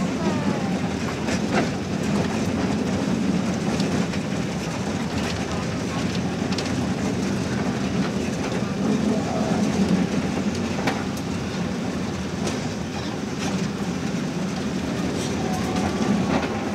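A small park ride train running with a steady rumble, with scattered clicks from its wheels on the track.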